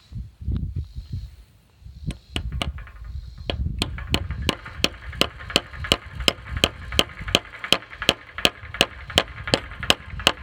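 Hammer driving a barbed fence staple into a wooden fence post. A few lighter taps are followed by a steady run of sharp, ringing strikes, about three a second.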